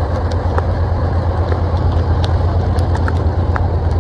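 Steady low rumble and rushing noise of a flooded street, with a car driving through the floodwater. Scattered light ticks sound over it.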